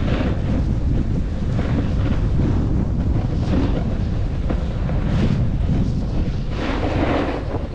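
Wind buffeting a helmet-mounted action camera's microphone as it rushes down a ski slope, a steady low rumble. Over it come repeated hissing swells, every second or two, of edges scraping across packed snow through the turns.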